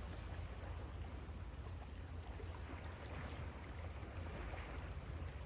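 Steady wash of sea surf on the shore, with a constant low rumble underneath.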